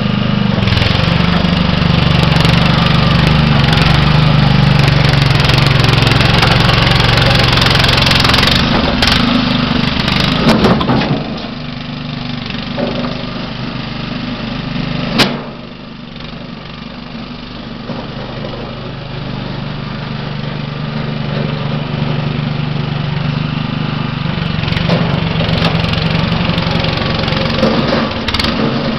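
Small petrol engine of a motorized wheelbarrow running steadily, loud for the first ten seconds or so, then settling to a lower level with a single sharp knock about fifteen seconds in, and building again near the end.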